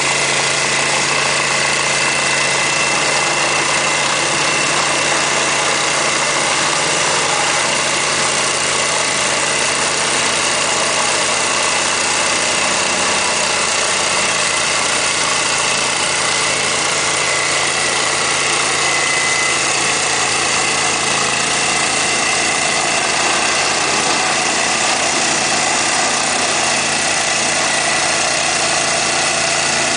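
Engine of a ditch-digging machine running steadily at a constant speed, with a steady high whine over a low hum.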